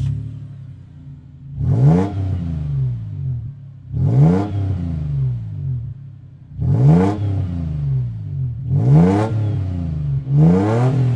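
Toyota 4Runner's 3.4-litre V6 through a MagnaFlow Overland Series stainless-steel cat-back exhaust, heard from outside the truck. It settles to idle just after starting, then is revved in five quick blips, each rising and dropping back to idle.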